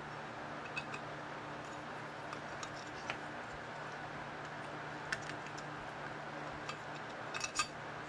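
Light clicks and metal clinks from a switch on a metal plaster ring and its wires being handled. A few are scattered, and a quick cluster comes near the end, over a steady low hum.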